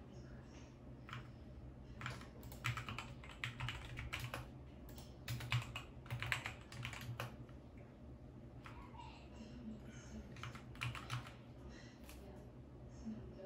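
Typing on a compact RGB-backlit mechanical keyboard: quick runs of key clacks about two seconds in and again around nine to eleven seconds, with scattered single clicks in between, over a low steady hum.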